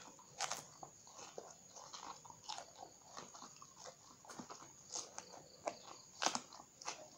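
Close-up biting and chewing of raw round green eggplant, with irregular crisp crunches. There is a sharp bite about half a second in and another, louder one near the end.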